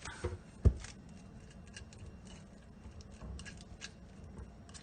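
A utensil working mashed avocado, making one sharp knock under a second in, then light clicks and scrapes.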